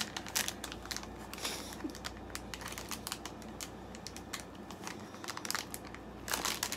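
Snack bag crinkling in the hands as fingers pick and pull at its sealed top, trying to tear it open, with irregular small crackles throughout.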